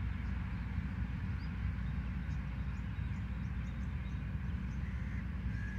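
Wind rumbling on the microphone of a camera left on open grass, fluttering steadily, with a few faint, short bird chirps in the middle.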